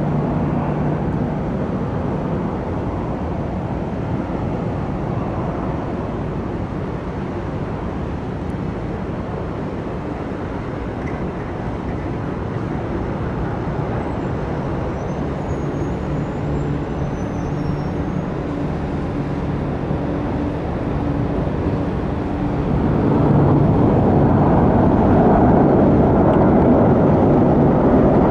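Jet airliner engines, a steady rumble with a low hum that grows louder about 23 seconds in.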